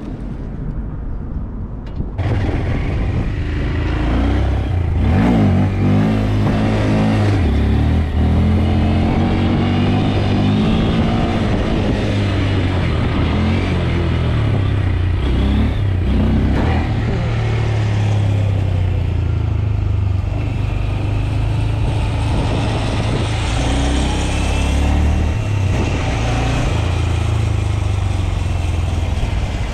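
Small motorcycle engine under way, revving up and easing off repeatedly as it rides, with wind rushing over the microphone. The engine picks up sharply about two seconds in.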